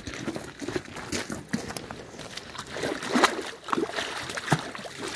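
Footsteps on a gravel path, then a large fish thrashing in a landing net as it is dipped into pond water, splashing and slapping the surface. The loudest splashes come about three seconds in and again near the end.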